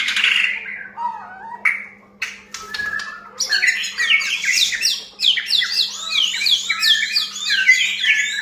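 White-rumped shama singing: varied whistled notes mixed with sharp, harsh calls, then from about three and a half seconds in a fast, dense run of repeated downward-sweeping notes.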